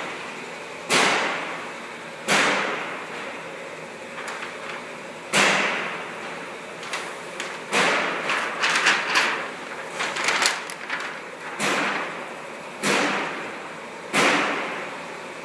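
Stiff, heavy cardstock sheets being handled and flexed, giving a series of sharp swishes. Each swish fades over about a second, with a quicker run of them in the middle.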